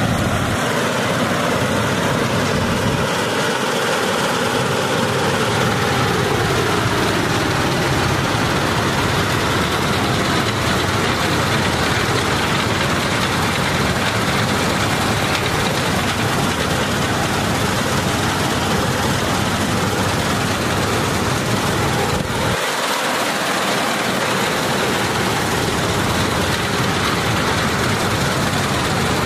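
Combine harvester running steadily while cutting a wheat crop, a dense, even machine noise. A tone in it sinks slowly over the first several seconds, and the deep part of the sound changes abruptly about three-quarters of the way through.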